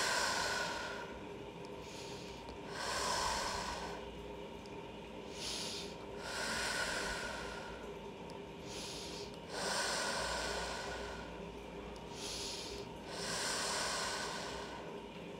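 Slow, deep human breathing, about five long breaths at roughly three-and-a-half-second intervals, each with a shorter softer breath between. This is relaxed yoga breathing in corpse pose.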